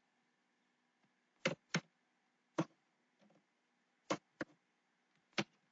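Computer keyboard keys pressed one at a time while code is typed: about half a dozen separate clicks at uneven intervals.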